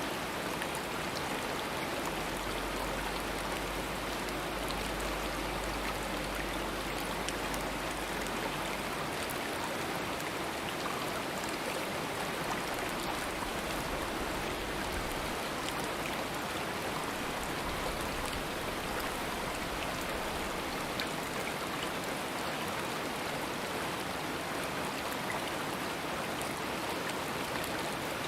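A stream running: a steady, unbroken rush of flowing water.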